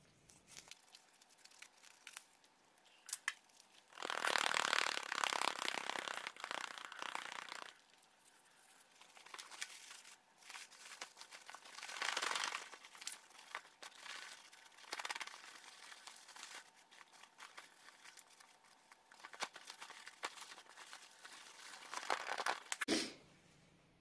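Sped-up rustling, crinkling and tearing as a used disposable vacuum bag is cut open with scissors and its carpet fibres and dust are shaken out onto a plastic sheet, in irregular bursts.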